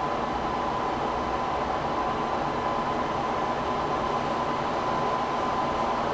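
Steady mechanical background noise: a constant rumble with a thin steady whine above it, unchanging throughout.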